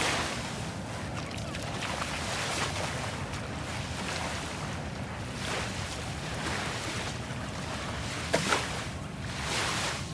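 Small waves lapping and washing up a sandy shoreline, swelling and ebbing every few seconds, with wind rumbling on the phone's microphone. Two quick sharp knocks come about eight and a half seconds in.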